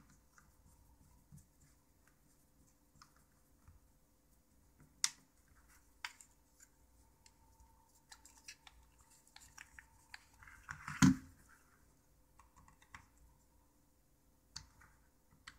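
Faint scattered clicks and scratching of a small Torx screwdriver working tiny screws into the back of a phone's plastic housing, with handling taps as the phone is turned in the hands. One louder knock comes about two-thirds of the way through.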